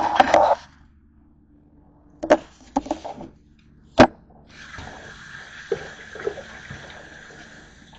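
Kitchen tap running into a stainless steel sink, starting a little past halfway, with hands rinsing a fork under the stream. Before it, a short scrape of a plate on the counter and a few sharp knocks.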